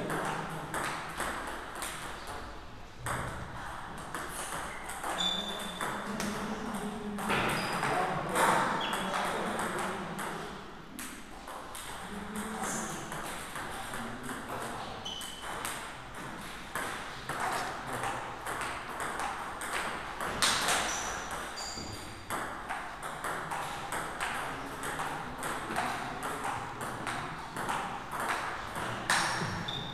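Table tennis rallies: the ball clicking back and forth off the rackets and the table in quick exchanges, with more ball clicks from a neighbouring table in the hall.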